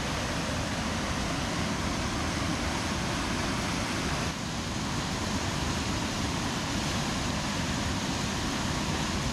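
River water pouring steadily over a low concrete weir, a constant rushing roar.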